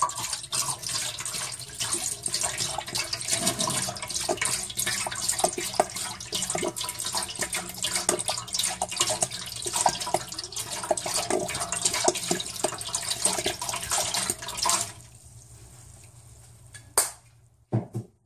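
Fish sauce being poured from a bottle into a pot of liquid, a continuous uneven splashing pour that stops about fifteen seconds in. A sharp knock and then two quick knocks follow near the end.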